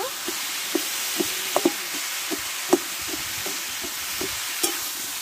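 Katla fish head and ash gourd pieces frying with a steady sizzle in a metal kadai, while a metal spatula stirs and breaks them up, scraping and tapping the pan at irregular moments. The sharpest clack comes about two and a half seconds in.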